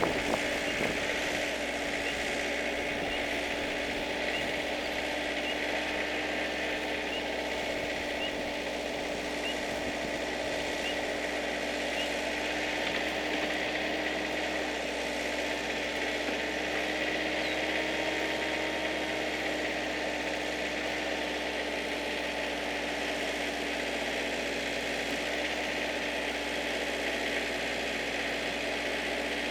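Tafe tractor's diesel engine running steadily at constant speed. A faint row of short high chirps comes about once a second during the first ten seconds or so.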